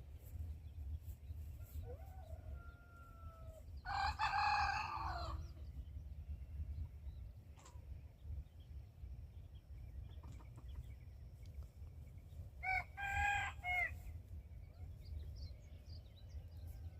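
Rooster crowing twice: a longer crow about four seconds in and a shorter one about thirteen seconds in. Fainter bird calls come between, over a steady low rumble.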